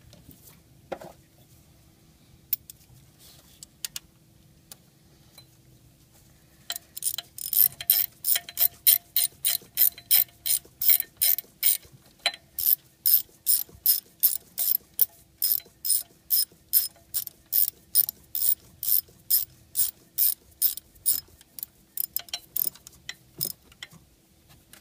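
Hand ratchet wrench clicking as it is swung back and forth on a bolt, tightening the ignition coil's hold-down bolt after a spark plug change on a Ford 4.6L V8. A few scattered clicks at first, then a quick, even run of clicks, two or three a second, until near the end.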